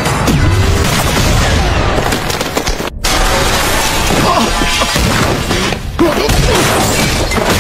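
Anime fight soundtrack: dramatic background music mixed with heavy impact and crash sound effects. The mix drops out sharply for a moment about three seconds in.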